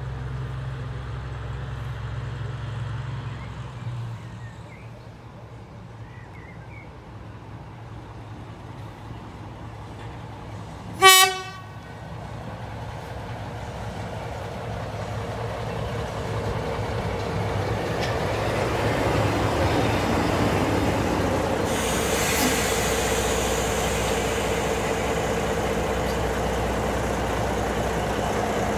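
Small diesel shunting locomotive: the engine running low and steady, one short horn toot about 11 seconds in, then the engine growing louder and running harder as the locomotive draws up close.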